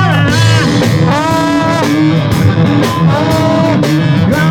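Live rock band playing a blues-rock number, with electric guitar to the fore over bass and drums.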